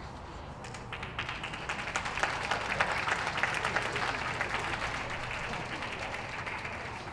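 Audience applauding. The clapping starts about a second in, is loudest around three seconds and dies away near the end.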